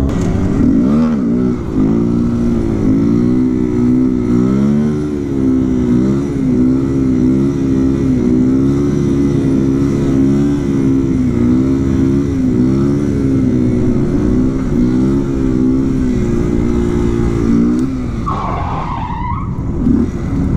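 Kawasaki Z125 Pro's small single-cylinder engine revving up and down under riding, its pitch rising and falling every second or so. Near the end the revs drop back and a brief higher, wavering sound rises over it.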